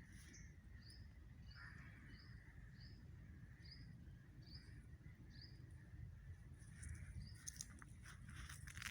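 A bird giving a series of short chirps, about eight evenly spaced over five seconds, over a faint low rumble of wind. A few crackling steps on the forest floor start near the end.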